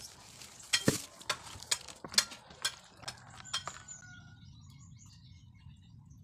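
A raw pig's head being handled in a plastic basin: irregular clicks and knocks, one deeper thud about a second in. They stop about four seconds in, leaving a faint low hum.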